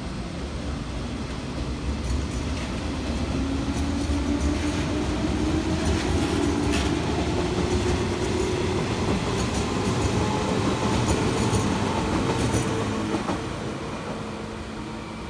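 A JR West 115-series electric train running past and pulling away: traction motors humming, rising in pitch as it picks up speed, with wheels clacking over rail joints. The sound builds, holds, then fades as the train moves off.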